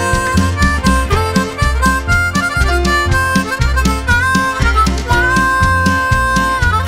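Band instrumental break: a harmonica plays a melody of held notes with slides between them, over bass and drums keeping a steady beat.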